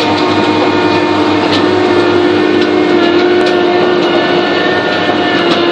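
Drilling rig's engine and hydraulic rotary drive running steadily under load with a constant hum, turning a toothed steel casing tube down into the soil. A few sharp clicks sound through it, about a second and a half, three and a half and five and a half seconds in.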